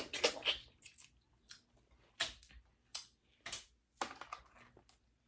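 A person eating a Cajun-style crawfish and mussel boil: short bursts of wet chewing and biting, about half a dozen, with quiet gaps between them.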